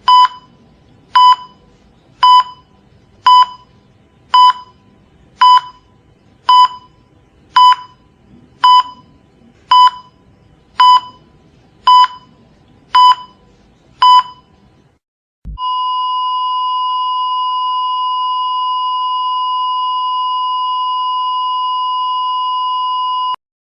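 Cardiac monitor beeping steadily, about one beep a second, fourteen times. The beeps then stop, and after a click the monitor gives one long unbroken tone, the flatline alarm that signals asystole. The tone cuts off suddenly near the end.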